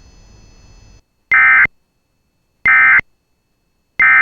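Emergency Alert System SAME end-of-message signal: three short, identical bursts of buzzing digital data tones, about 1.3 seconds apart, after a faint hiss in the first second.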